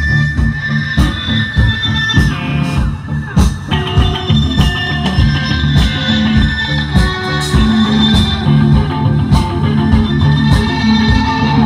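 Live rock band playing an instrumental passage: guitar over a drum kit keeping a steady beat.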